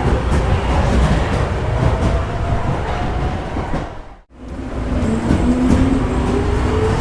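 Subway train pulling out, a dense rumble with wheel clatter and a slowly rising whine as it speeds up. A little past four seconds in the sound fades out sharply and starts again, a loop restarting.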